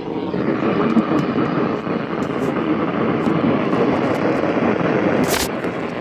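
Weather radio receiver hissing with static on a weak signal, with scattered clicks and one sharp crackle about five seconds in.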